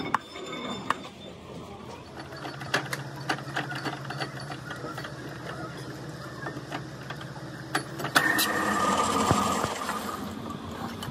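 Metal lathe running: a steady mechanical hum from its motor and gearing, with rattling metal clicks. About eight seconds in the running turns louder and harsher.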